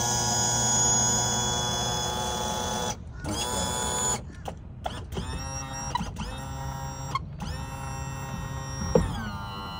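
Electric power trim and tilt pump motor of a Yamaha 150 outboard whining as the engine is tilted up and down to purge air after the trim and tilt fluid is refilled. It cuts out about three seconds in, then starts and stops several times in short runs, rising in pitch as it spins up each time, and its whine drops in pitch near the end.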